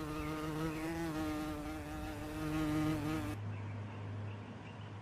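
A flying insect buzzing steadily near the microphone, its pitch wavering slightly. It cuts off abruptly about three and a half seconds in, leaving a low steady hum.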